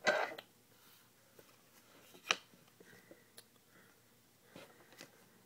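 Trading cards being handled and slid across one another: a short rustle at the start, a sharp snap a little over two seconds in, then a few faint ticks.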